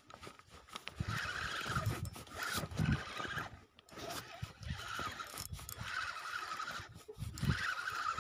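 Cloth of a sleeve rubbing and rustling against the microphone, with uneven low thumps from handling.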